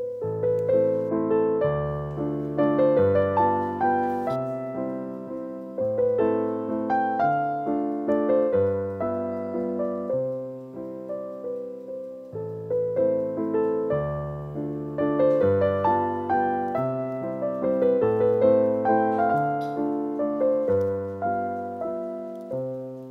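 Background piano music: a gentle melody of struck, fading notes over a bass line that changes about once a second.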